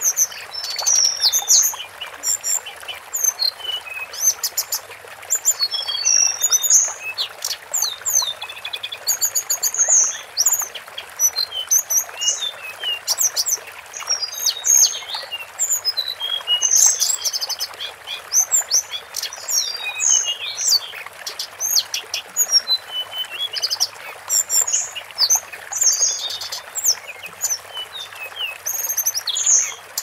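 Tledekan gunung, a blue flycatcher, singing a continuous stream of fast, high twittering phrases, chirps and trills with no pause, over a steady faint hiss.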